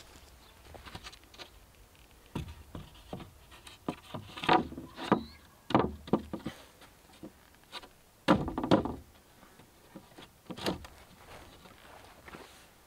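Wooden boards and framing timber being handled, with irregular knocks and short scrapes, loudest in two clusters midway and about eight seconds in.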